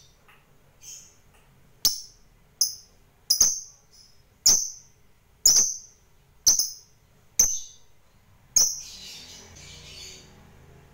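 Fischer's lovebird giving short, sharp high chirps, about eight of them roughly a second apart, followed near the end by a softer, scratchy chatter.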